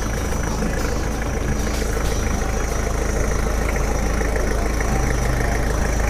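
A vehicle engine idling steadily, an even low rumble.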